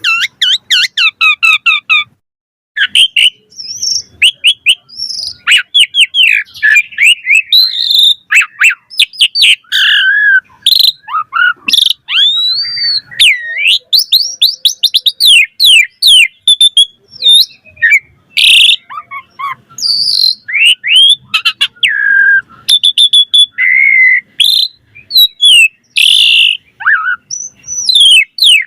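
Asian pied starling singing in full, varied song: a rapid, unbroken run of whistles, chirps and trills with notes sweeping up and down. There is a short pause about two seconds in.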